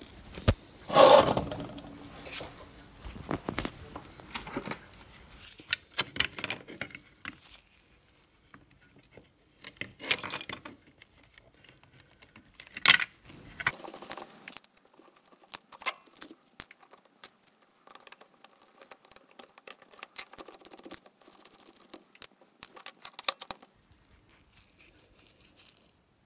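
Handling noise from taking apart a soldering station's base: irregular clicks, taps and scrapes of small metal terminals and wiring being worked loose by hand, the loudest a clatter about a second in.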